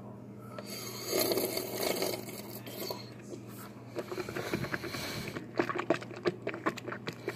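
Ice sliding and scraping in a plastic tub tipped up to the mouth, then ice being chewed close to the microphone. Rapid sharp crunches come in the last couple of seconds.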